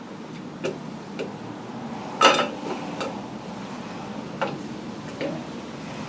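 Light metallic clicks and knocks, about six of them, the loudest a short clatter about two seconds in: parts being handled while a replacement fuel pump is worked into place on a Kohler Magnum 8 engine.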